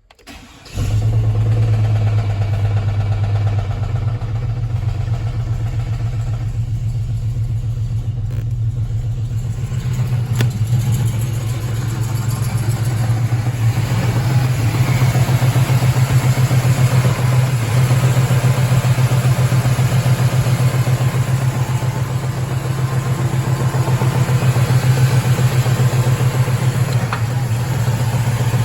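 The truck's 4.3-litre Vortec V6 starts up under a second in and then idles steadily. It is being run to judge whether the engine can be saved, with a rod knock suspected.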